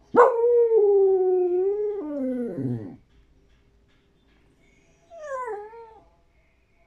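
Dog crying for a tamal. It gives one long whining howl of about three seconds that holds its pitch and then slides down at the end, and about five seconds in a shorter, quieter falling whine.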